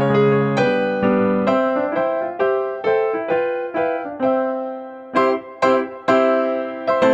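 Background music: a keyboard playing a gentle melody of single struck notes, each fading before the next.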